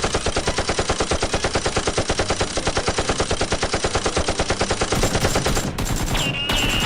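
Rapid automatic gunfire: a long, unbroken stream of evenly spaced shots that stops about five and a half seconds in. A high whistling tone comes in just before the end.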